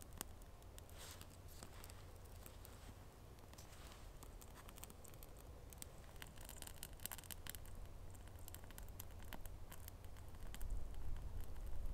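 Small, freshly lit campfire of birch bark and twigs crackling, with many quick, irregular pops. Wind rumbles on the microphone underneath and grows stronger near the end.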